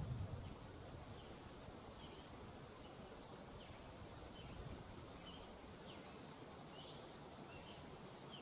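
Faint outdoor background with a small bird giving short high chirps every half second or so. A low rumble dies away in the first half second.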